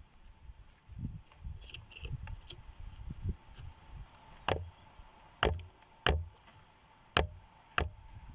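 Wood being chopped: softer knocks and rustling, then five sharp strikes in the second half, roughly one a second.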